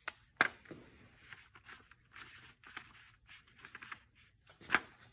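A felt-tip marker writing numbers on paper, and sheets of paper being handled: short scratchy strokes with a few sharp taps, two near the start and the loudest near the end.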